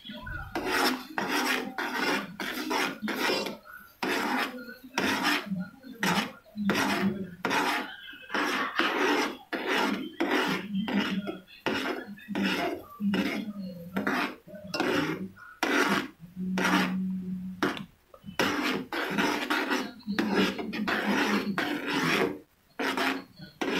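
A utensil scraping round the bottom of a cooking pot while stirring ginger water to dissolve palm sugar: repeated scraping strokes at about two a second, with a few brief pauses.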